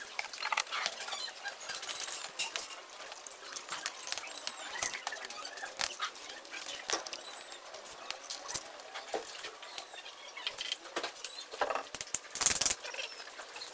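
Irregular light clicks, taps and rustling, with a louder clatter about twelve seconds in.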